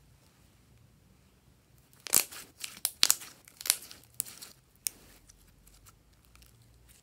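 Glossy slime being stretched, squeezed and folded by hand: a cluster of sticky crackles and pops as the slime pulls apart and trapped air bursts, starting about two seconds in and dying away about two seconds later.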